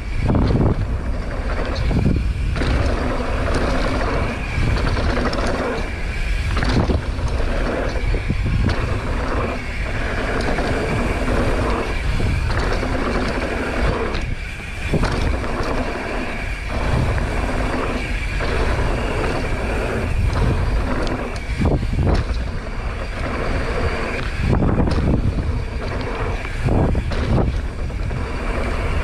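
Mountain bike riding down a dirt jump trail, heard through an action camera's microphone: wind buffeting the mic and tyres rumbling over dirt, loud throughout, with brief dips and surges.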